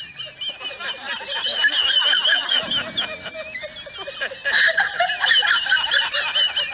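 High-pitched giggling and tittering, several wavering voices overlapping, getting louder about four and a half seconds in.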